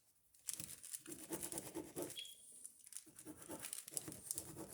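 Ballpoint pen scribbling on paper in quick, faint scratchy strokes, starting about half a second in: an old pen being tried to see whether its dried ink flows again after brief microwave heating.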